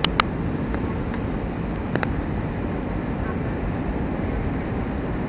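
Steady cabin noise of a jet airliner on its landing approach: engine and airflow noise heard from a window seat over the wing. A few sharp clicks sound in the first two seconds.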